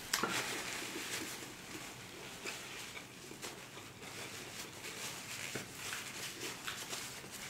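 Close-miked chewing of tacos: small wet mouth clicks and smacks, with a sharper one just after the start, and a paper napkin rustling as hands are wiped.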